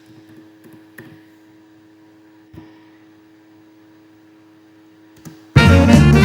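A faint steady electrical hum with a couple of light clicks, then loud swing-style music with drums and brass starts suddenly near the end.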